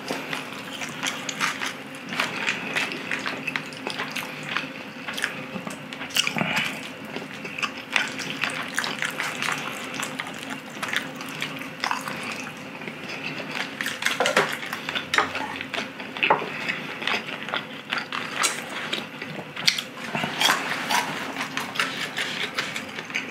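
Close-miked eating of saucy udon noodles and chicken: wet chewing and mouth smacks with irregular clicks throughout, over a faint steady hum.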